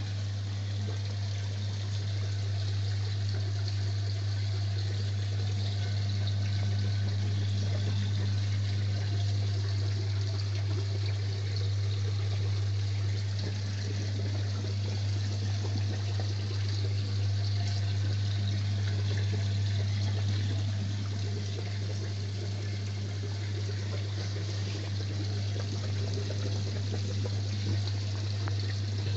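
Aquarium filter pump running with a steady low hum, with water splashing and trickling where the flow churns the surface.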